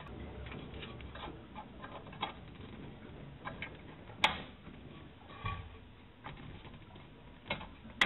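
Small clicks and taps of fingers fitting a spare 1 amp ground-fault fuse into its holder inside a solar charge controller, with one sharper click about four seconds in and another at the very end.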